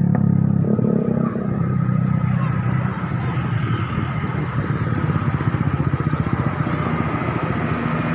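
Heavily loaded truck's diesel engine labouring up a steep climb at low revs. A steady low drone gives way about three seconds in to a coarse, rapid pulsing.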